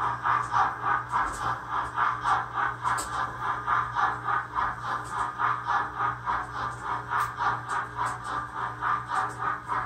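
Model BR 85 steam locomotive hauling a coal train on a model railway, running with a steady rhythmic pulsing of about three beats a second.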